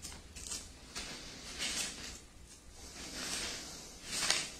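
Soft rustle of paper pages being turned in a small book: a few irregular swishes, the loudest near the end.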